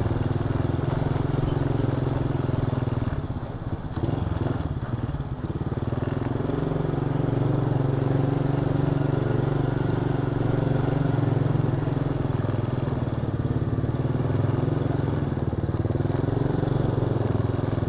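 Honda Astrea Star's small single-cylinder four-stroke engine running under way, a steady motorcycle engine sound heard from on the bike. The engine sound eases off briefly about three to four seconds in, then picks up again and holds steady.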